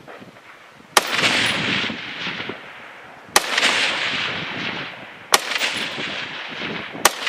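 Four rifle shots about two seconds apart, fired at distant steel targets, each followed by a long rolling echo that fades over a second or more.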